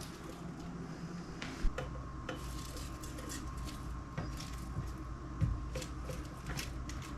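Dried basil leaves being handled and pushed into a glass mason jar: scattered light crackles and clicks, with two soft knocks against the jar.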